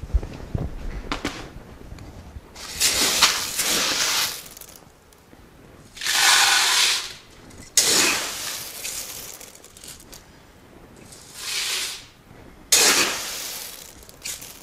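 Dry black oil sunflower seeds being scooped from a plastic bin and poured into a plastic pitcher on a kitchen scale: about five rattling, hissing rushes of seed, each lasting a second or so.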